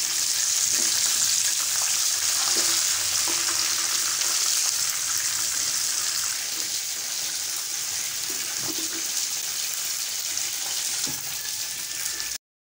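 Crumb-coated chicken skewers shallow-frying in hot ghee: a steady sizzle, with a few faint knocks as the golden-brown pieces are lifted out with a silicone spatula. The sound cuts off suddenly near the end.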